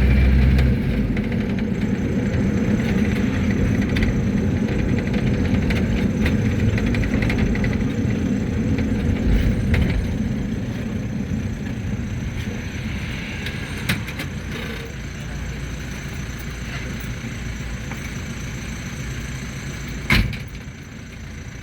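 Mercedes-Benz T1 minibus driving, its engine and road rumble heard from inside the cabin, growing quieter about halfway through. A sharp knock sounds near the end.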